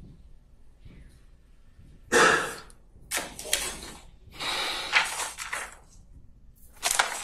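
A man breathing out heavily into a close microphone: several long, loud sighs of about a second each, starting about two seconds in.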